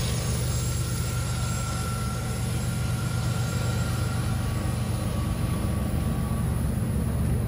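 Diesel freight locomotive running steadily with a low engine hum, together with train wheels rolling over the rails on a curve.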